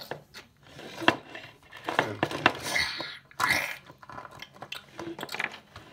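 Large plastic tyrannosaurus toy being handled and worked, giving a few sharp plastic clicks and knocks with short rasping noises in between.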